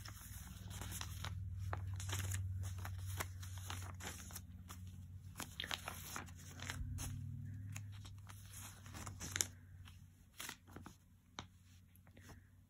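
Glossy magazine pages and paper clippings rustling and crinkling as they are shuffled and moved by hand, in scattered short strokes, over a low hum that fades out after about eight seconds.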